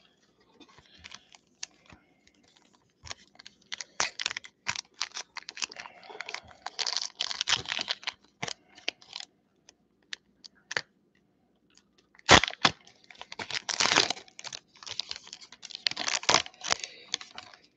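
Foil booster-pack wrapper crinkling and being torn open by hand: irregular crackles and rips, with a quiet pause partway through and a sharp tear at about twelve seconds, followed by more crinkling.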